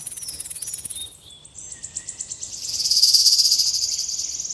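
Insects trilling in rapid, high-pitched pulsed trills: a very high trill fades about a second in, and a lower one starts about half a second later and grows louder.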